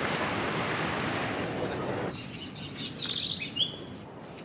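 Steady rushing of sea surf on the beach, cut off about two seconds in, followed by a bird's quick, high chirps and a short whistled note, the loudest sounds.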